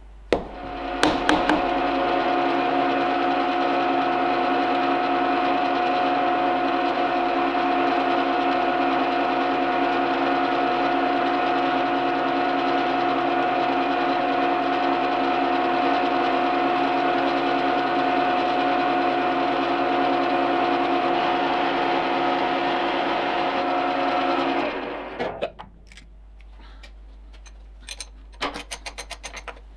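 A few sharp taps of a soft-faced hammer seating an aluminium bar in the vise. Then the gear-driven spindle of a Reiden milling machine runs steadily with a whine while machining the bearing hole, and winds down about 25 seconds in. A few light metallic clicks come near the end.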